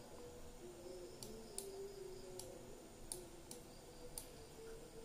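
A few sharp computer mouse clicks, about six spaced irregularly, over a faint low hum.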